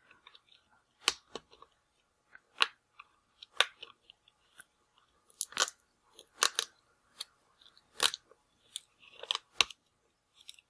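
Adhesive tape being peeled up from the back of a laptop LCD panel: about a dozen short, sharp crackles and clicks at irregular intervals.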